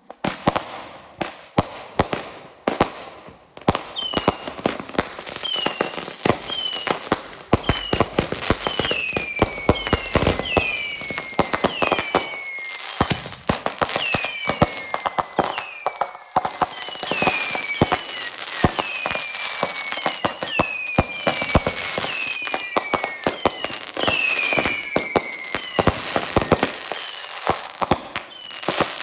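Fireworks going off in a fast barrage of pops, bangs and crackling. From about four seconds in, short whistles that fall in pitch rise over it, about one a second, and they stop near the end.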